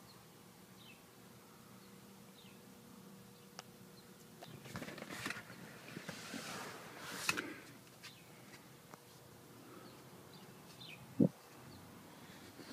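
Rustling handling noise as the phone is moved about, with a sharp click about seven seconds in and a single short thump near the end, over faint background chirping.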